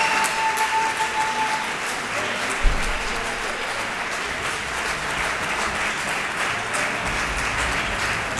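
Crowd applause, an even crackling clatter of many hands. A steady tone sounds over it for the first second and a half, and a single low thump comes a little before three seconds in.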